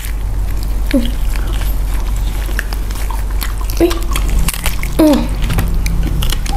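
Close-up eating sounds of roast duck: chewing and gnawing with many small clicks as the meat is torn apart by hand. A few short hummed murmurs come about a second in and again near four and five seconds, over a steady low hum.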